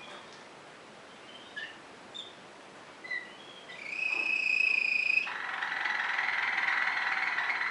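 Waterslager (Malinois) song canary singing: a few short soft notes, then about four seconds in a clear whistled note held for over a second, followed by a steady rolling trill.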